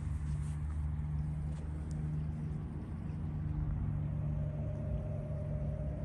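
A steady engine drone: a low hum with a higher tone joining in about four seconds in.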